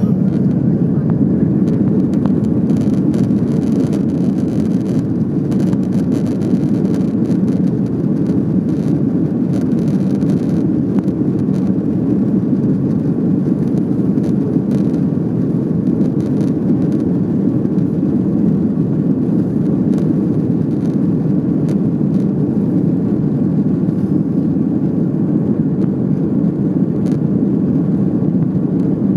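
Cabin noise of an Airbus A330 rolling on the ground: the steady low rumble of the jet engines and wheels on the runway, even in level, with faint clicks and rattles through roughly the first ten seconds.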